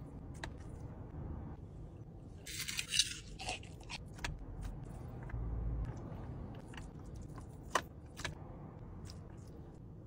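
Eating chicken biryani by hand from a metal plate: rice and chicken being mixed, squeezed and chewed, with scattered small clicks and crunches. A louder rustling burst comes about two and a half seconds in.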